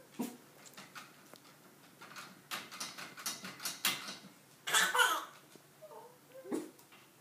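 White metal baby gate rattling and clicking in quick knocks as toddlers grip and shake its bars. A short baby squeal about five seconds in and a few small baby sounds near the end.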